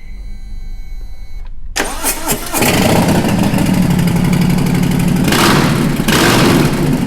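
A motorcycle engine is started: a steady tone first, then the engine catches about two seconds in and runs loud and steady, revving up briefly twice near the end.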